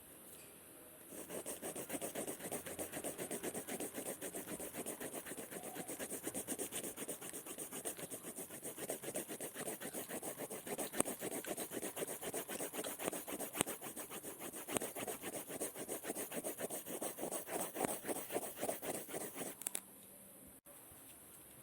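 A pen or pencil point scribbling rapidly back and forth on paper in a dense, scratchy run of strokes, starting about a second in and stopping about two seconds before the end.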